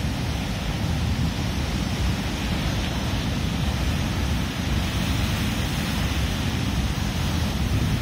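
Rough North Atlantic surf breaking and churning over rocks: a steady rushing noise, heaviest in the deep low end.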